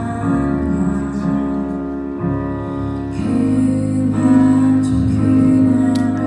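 Live band playing a slow pop ballad, with a singer's voice over keyboard and electric guitar.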